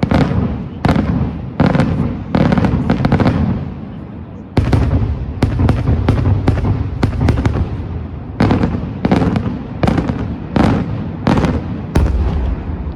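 Daytime fireworks display: a rapid, irregular series of loud bangs, several close together, each ringing on briefly, with a short lull about four seconds in before the bangs pick up again.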